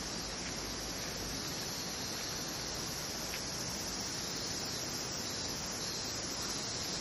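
Steady chorus of summer insects in a forest, a continuous high buzz over a low, even hiss.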